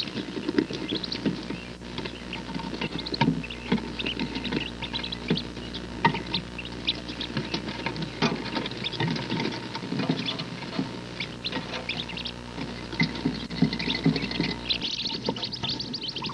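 A brood of wood duck ducklings peeping rapidly and without pause, with the scratching and pattering of many small feet scrambling over the nest box's wire-mesh floor and over the hen.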